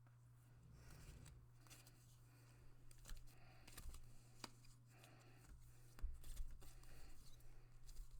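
A deck of oracle cards being shuffled by hand: faint, irregular snaps and slides of card stock, with low bumps of handling in the second half, over a steady low hum.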